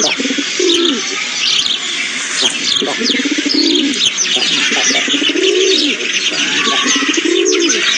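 Morning bird chorus: many small birds chirping in quick high calls, over low cooing phrases repeated about once a second.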